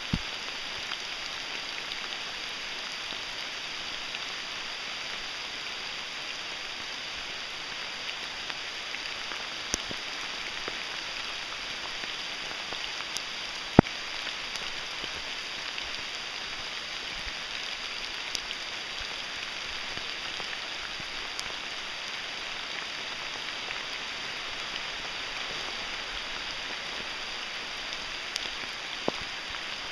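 Steady rain hiss, with a few sharp ticks scattered through it, the loudest about fourteen seconds in.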